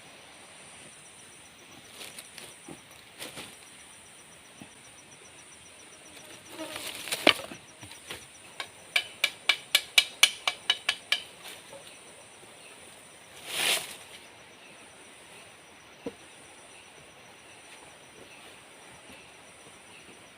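Tropical forest insects trilling steadily and high. Over them comes a fast run of about a dozen sharp knocks, roughly five a second, in the middle, with a few scattered knocks before it and a short rushing sound a few seconds later.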